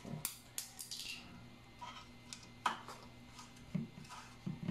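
5 mm hex key turning in the pinch bolts of a Shimano crank arm as they are loosened, giving scattered light metallic clicks and scrapes.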